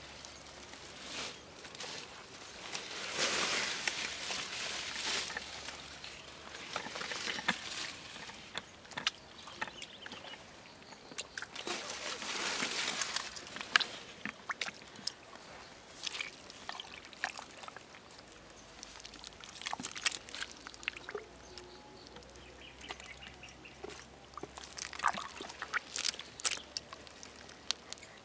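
Muddy water sloshing and splashing in a shallow dug trench, with scattered small clicks and soil rustles; the splashing is loudest a few seconds in and again about twelve seconds in.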